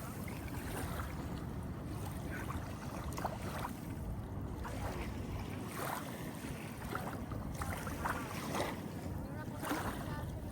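Wind buffeting the microphone over ocean water washing and lapping in the shallows, a steady low rumble.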